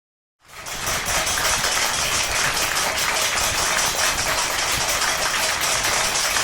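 Applause: dense, even clapping that fades in about half a second in and then holds steady.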